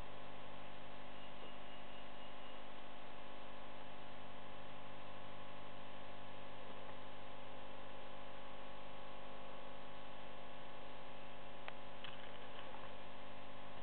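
Steady electrical mains hum with a constant hiss, and a faint click near the end.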